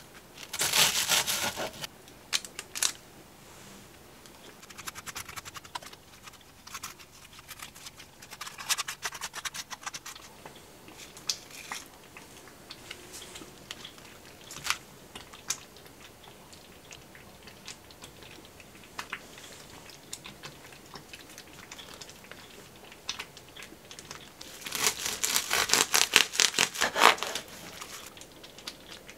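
Bread knife sawing back and forth through bread on a wooden cutting board for a second or two, then soft crinkling and clicks while lettuce and plastic wrap are handled. Near the end comes a second run of quick sawing strokes as the plastic-wrapped sandwich is cut in half, the loudest sound.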